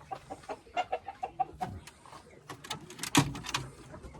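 Domestic chickens clucking, with a quick run of short clucks about a second in. Several sharp knocks or rustles come around three seconds in.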